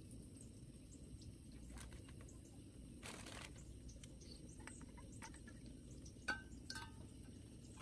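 Quiet handling of a stainless steel thermos flask at a camp stove: a short hiss about three seconds in, then two light metallic clinks near the end.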